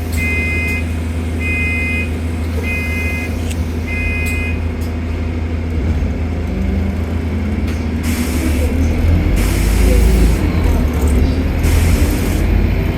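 Bus interior: four steady two-tone electronic beeps about a second apart, like a door warning chime, over the low hum of the bus's diesel engine. From about halfway the engine gets louder as the bus pulls away, with two spells of hiss near the end.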